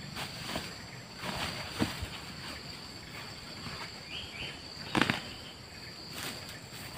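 Rustling and knocking of a woven plastic fertiliser sack being handled as dolomite lime is scooped into a small plastic bucket, with the sharpest knock about five seconds in, then a few footsteps on dry grass near the end.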